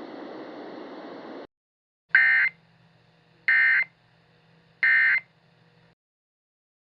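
Emergency Alert System end-of-message code: three identical short bursts of the buzzing digital data tone, each under half a second, about a second apart, marking the end of the alert. Before them a faint hiss cuts off about a second and a half in.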